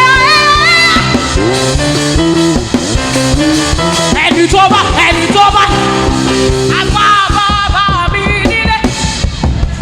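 Live gospel worship music: a band with drums and sustained chords, with a voice singing drawn-out, sliding phrases over it at intervals.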